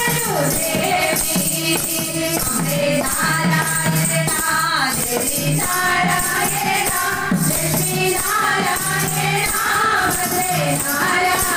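A women's group singing a devotional bhajan together through microphones, with a tambourine jingling along on the beat.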